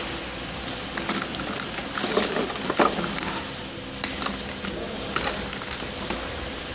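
Small plastic bottles clicking and knocking against each other as a hand rummages through a crate of them, several sharp knocks, over a steady machine hum.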